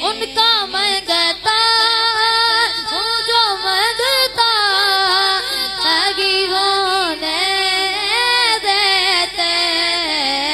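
A boy singing solo into a hand microphone, with long, ornamented held notes that waver and bend in pitch.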